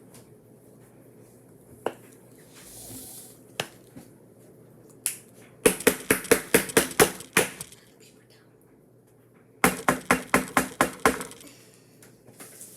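Two runs of rapid, sharp clicking taps, about six a second, each lasting about two seconds, a couple of seconds apart, with a few single clicks before them.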